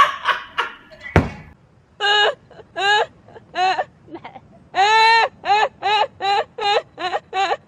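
A man's laughter tails off, then a single dull thump about a second in. After that a woman laughs loudly in a long string of high-pitched 'ha' sounds that come faster toward the end.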